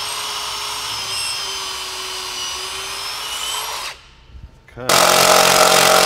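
Power drill pre-drilling screw holes into a paralam (engineered wood) door header, its motor whine running steady for about four seconds and then stopping. About a second later a second, louder run starts.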